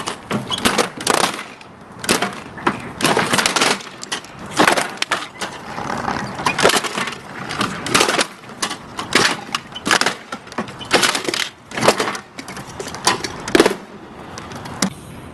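A toy being smashed apart: a rapid, irregular series of sharp cracks and crunches of breaking plastic.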